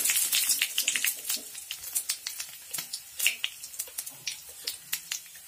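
Whole spices (bay leaf, dried red chillies, nigella and cumin seeds) crackling and popping in hot oil in a kadai. The sizzle dies down over the first couple of seconds and thins out to scattered sharp pops.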